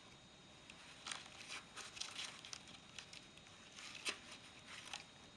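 Faint, irregular scrapes and light clicks as Bondo body-filler putty is scooped out of its can with a plastic spoon.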